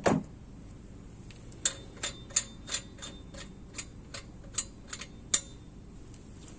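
A single knock, then about a dozen sharp clicks at uneven intervals over some four seconds.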